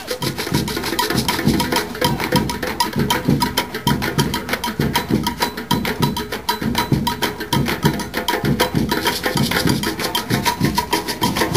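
A large ensemble of djembes and other hand drums playing together in a fast, steady rhythm, with sharp clicking strokes among the drum beats.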